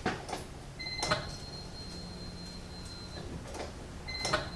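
Ignition key clicking on and the Honda Civic's electric fuel pump priming: a steady high whine with a low hum that runs about two seconds and cuts off, then the key is clicked again near the end and the pump starts whining once more.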